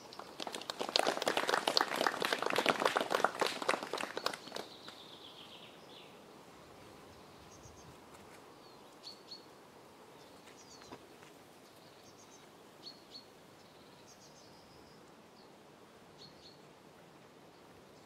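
A crowd applauding for about four seconds, dying away, then a quiet outdoor lull with short, faint bird chirps every second or two.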